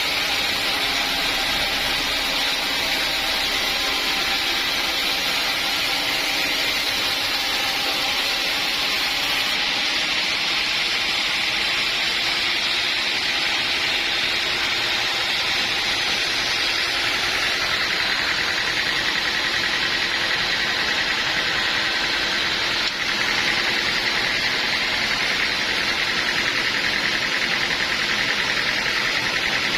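Sawmill machinery running steadily, a continuous mechanical noise with a slight change in pitch about eighteen seconds in.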